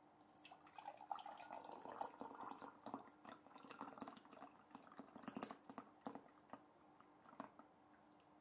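Hot apple pectin syrup poured in a thin stream into a glass jar: faint splashing and fizzing bubbles as the jar fills, dying away near the end.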